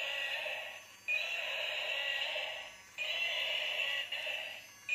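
Battery-powered toy dragon's electronic roar sound effect playing from its built-in speaker, repeating over and over, each roar lasting under two seconds with a short break before the next.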